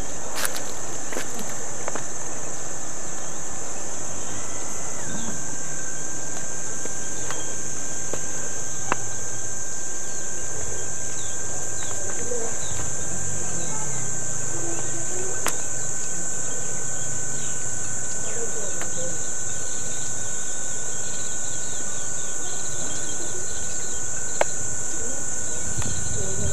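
A chorus of insects droning steadily at a high pitch, without a break.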